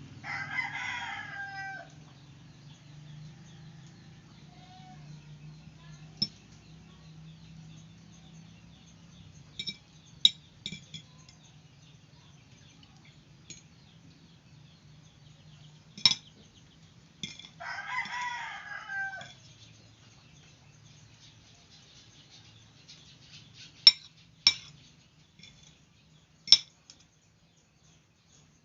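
A rooster crows twice, once just after the start and again about 17 s in. Several sharp clinks sound in between and after.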